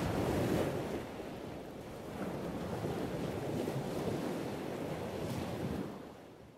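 Ocean waves washing in, a rushing noise that swells and eases, fading out near the end.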